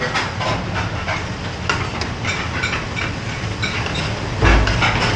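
Busy commercial kitchen at a gas range: a steady rushing noise under scattered clinks and knocks of ladles on metal pans, with a heavy low thump about four and a half seconds in.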